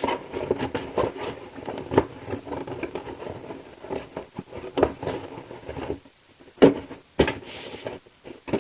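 Plastic model kit parts and their bags rustling and clicking as a cardboard kit box is closed over them. About two-thirds through come two sharp knocks and a short scraping hiss as the lid is pushed down. The tail fin parts keep the lid from closing flat.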